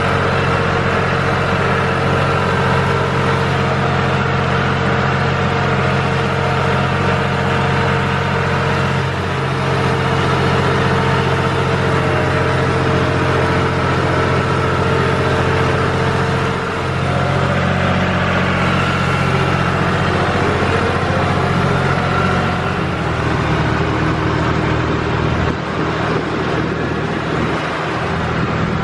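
A vehicle engine running steadily at a constant speed, with a slight change in its low note about 23 seconds in.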